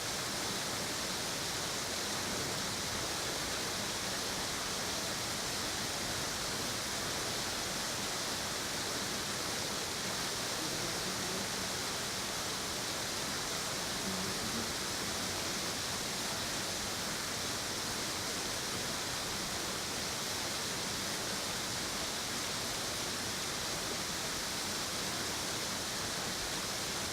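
Steady rushing of water falling over a waterfall, an even hiss with no breaks.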